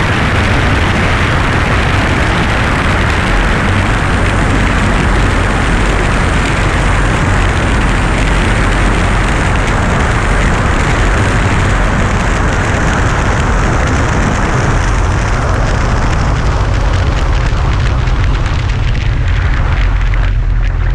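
Heavy wind buffeting on the microphone of a camera mounted on a light aircraft's wing, mixed with the drone of aircraft engines, as the plane rolls along the runway. A steady loud rumble with a rushing hiss that eases in its upper range near the end.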